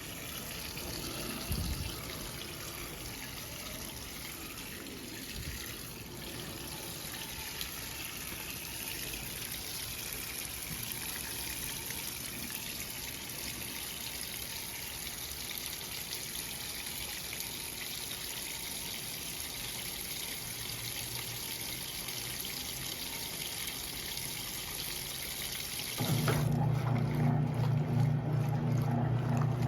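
Electrolux LE06DBD top-load washing machine filling its tub with water, a steady trickling rush. Near the end its motor switches on suddenly with a louder steady low hum.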